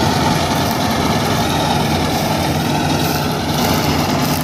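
Kartar 4000 combine harvester running steadily while cutting wheat, its diesel engine and machinery a loud, even drone.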